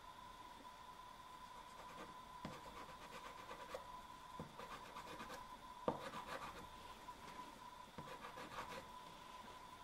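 Soft pastel rubbing and scratching across textured pastel paper in short, faint strokes, with a few soft knocks, the sharpest about six seconds in.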